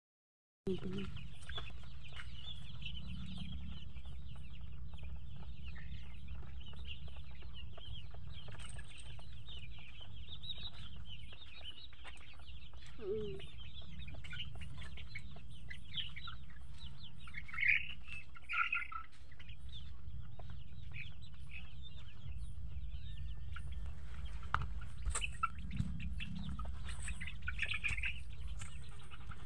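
A flock of young Rhode Island Red chickens clucking and cheeping softly and continuously, with a few louder calls a little past the middle, over a steady low hum.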